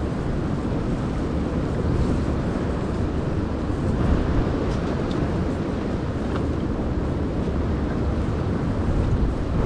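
Wind blowing across the microphone: a steady low rumble.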